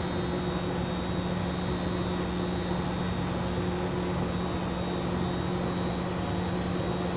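Steady drone of a ventilation or air-handling fan inside a ship's compartment, with a constant low hum underneath.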